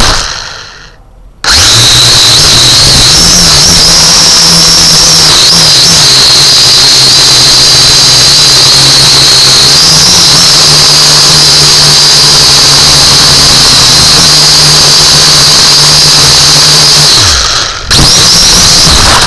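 Small drone's electric motors and propellers running very loudly, heard from the camera on the drone itself: a high steady whine over a lower hum. The sound dies away in the first second or so and then cuts back in abruptly; near the end the pitch drops as the motors slow, and they drop out briefly before running again.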